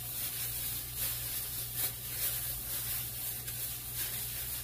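Plastic-gloved hands rubbing an oiled, seasoned raw ribeye steak, giving faint, irregular rubbing and handling noises, over a steady low hum.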